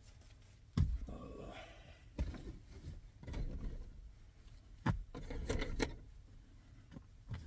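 Winter clothing rustling and gear being handled, with several sharp knocks and bumps in between.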